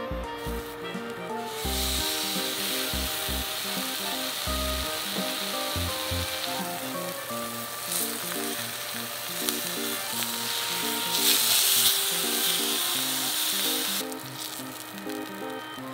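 Marinated pork steak sizzling in hot oil in a non-stick pan. The sizzle starts about two seconds in as the meat goes down, swells louder near the middle and eases off near the end. Background music plays under it.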